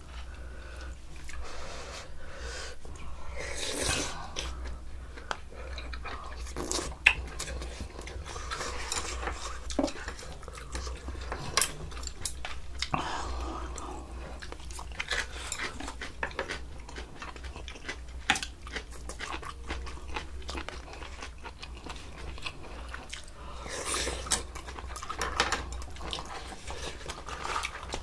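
Close-up eating sounds: chewing and biting, with sharp clicks of spoons and chopsticks against bowls and dishes every few seconds.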